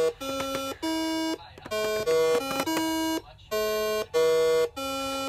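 Simon electronic memory game sounding a sequence of buzzy beeps, about two a second, each tone at one of a few different pitches as its coloured buttons light in turn.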